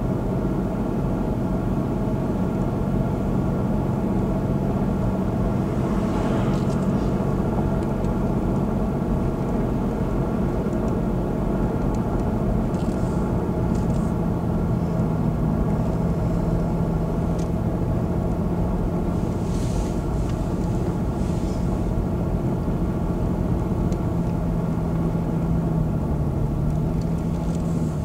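Car engine and tyre noise heard inside the cabin while climbing a paved mountain road: a steady drone whose pitch steps down slightly about halfway through and again near the end.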